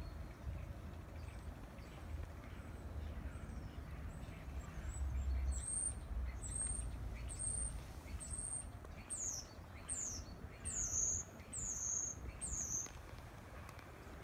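A bird calling: a series of about nine high, thin notes, roughly one a second, starting about five seconds in, the later ones short falling whistles. A steady low rumble runs underneath.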